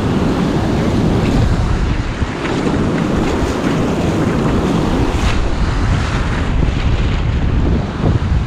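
Ocean surf washing on the beach, with strong wind buffeting the microphone.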